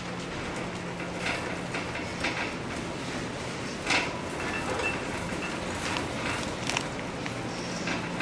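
Grocery store background sound: a steady low hum under a haze of noise, with occasional short clicks and rattles, the loudest about four seconds in.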